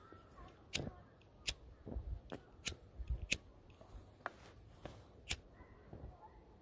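Spinning rod and reel being handled: a run of about eight sharp, irregular clicks and ticks.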